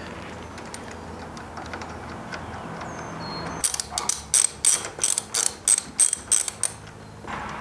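Hand ratchet clicking as it drives in the hex bolts that fix the handlebar riser base to the motorcycle's top triple clamp. There are faint handling ticks at first, then about halfway in a run of about ten sharp clicks, roughly three a second.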